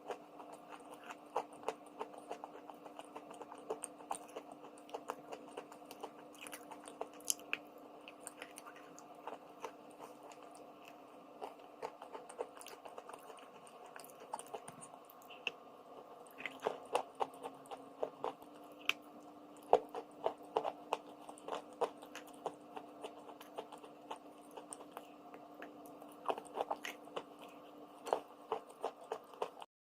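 Close-up crunching of someone biting and chewing pieces of edible chalk and clay, in irregular sharp crunches that bunch up after the middle and again near the end. A faint steady hum sits underneath.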